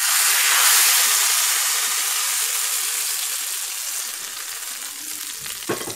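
Hot tempering oil (tadka) with asafoetida, cumin, fenugreek seeds, black mustard seeds and red chilli poured over a bowl of sambar, sizzling loudly at first and slowly dying down. A short knock near the end.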